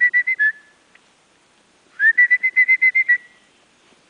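A person whistling two quick runs of short, high notes, each run lasting about a second and starting with a slight upward slide; one run is ending as it begins, the second comes about two seconds in.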